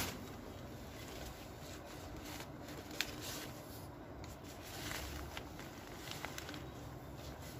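Faint rustling of tent fabric and handling noise, with a few short sharp clicks, the loudest about three seconds in.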